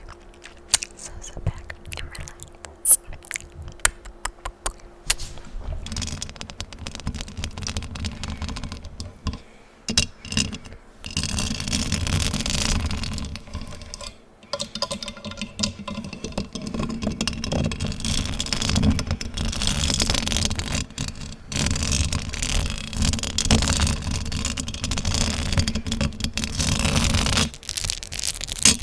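Fingers scratching fast and hard at a microphone, a dense scratchy rasp in long runs with a few brief breaks. Sparse small clicks come before it starts, about five or six seconds in.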